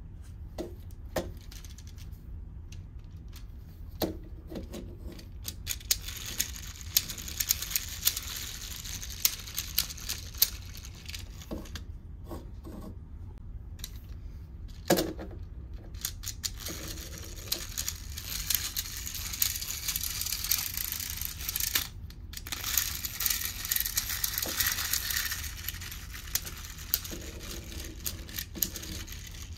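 Hard plastic clicking and rattling as a Minion propeller-fan toy is handled and worked, with long stretches of dense, fast clicking and hiss.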